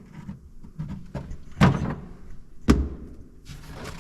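Two sharp knocks about a second apart, with quieter handling sounds between them.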